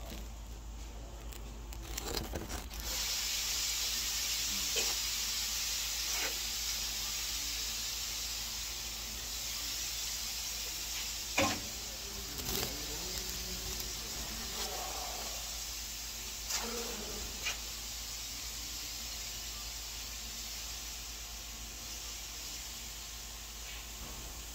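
Compressed air hissing steadily from an air line at a tire changer, starting suddenly a few seconds in and slowly easing off. A few sharp knocks sound around the middle.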